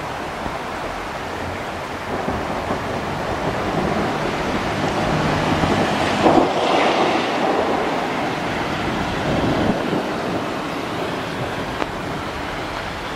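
Thunder rumbling over steady rain: a rolling rumble builds from about two seconds in, peaks with a sharper crack in the middle, and slowly dies away.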